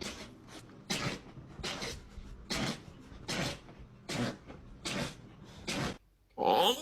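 A dog sneezing over and over: about seven short sneezes a little under a second apart, then a louder one near the end.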